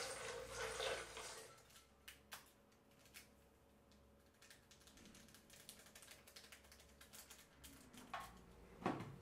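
Water pouring into a Vitamix blender's plastic container, stopping after about a second and a half. Then faint light clicks, and near the end two sharper knocks as the lid is pressed onto the container.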